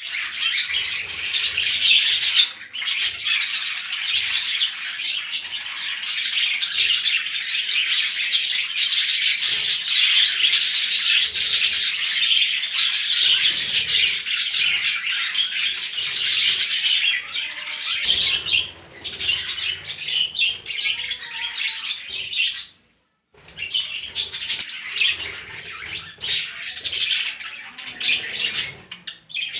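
Budgerigars chirping and chattering continuously, many birds at once, with a brief drop-out about three-quarters of the way through.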